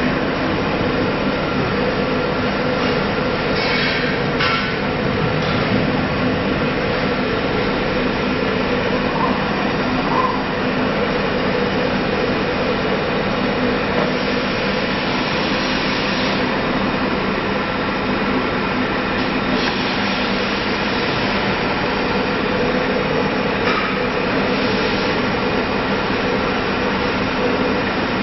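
Steady running noise from a CNC router's machinery, a constant hum with a few fixed tones under an even mechanical noise that does not change.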